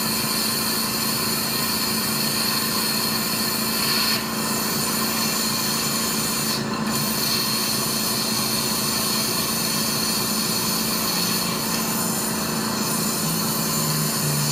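A machine running steadily, with short dips in the noise about four seconds and just under seven seconds in.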